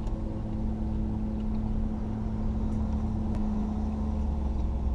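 Steady low drone of an idling engine close by, with a constant hum under it.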